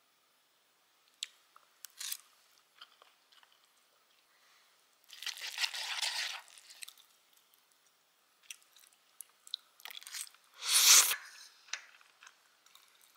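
Eating sounds: a few light clicks of a metal spoon and chopsticks, a squelching stir of saucy instant noodles in a paper cup about five seconds in, and a louder crunch a little before the end.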